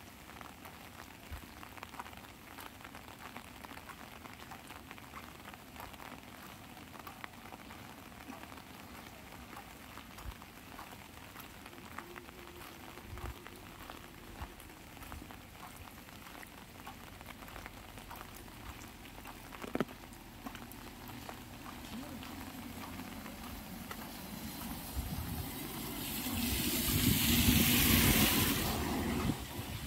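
Light rain pattering on an umbrella overhead, a steady hiss dotted with many small drop taps. Near the end a louder hiss swells up for a few seconds and fades away.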